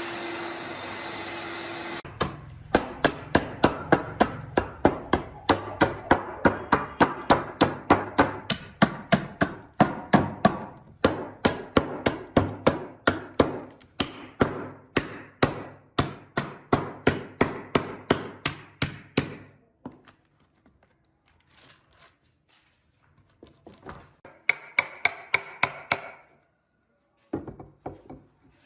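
A power tool's steady running cuts off about two seconds in. Then comes a long, steady series of hammer blows on wood, about two to three strikes a second, each with a short ring. They stop after about seventeen seconds, leaving a few faint knocks and scrapes.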